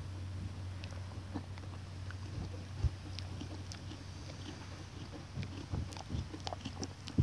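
Sheep mouthing and nibbling at the phone held to its face, giving scattered soft clicks and knocks, one louder knock about three seconds in and a flurry near the end, under a steady low hum.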